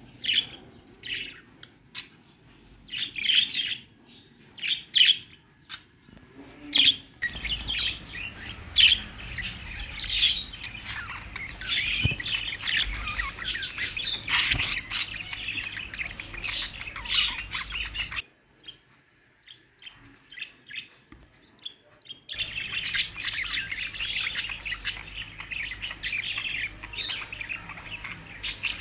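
Budgerigars chirping and chattering: scattered single chirps at first, then busy overlapping chatter with a low hum beneath it. The chatter drops to a few faint chirps for a few seconds past the middle, then picks up densely again.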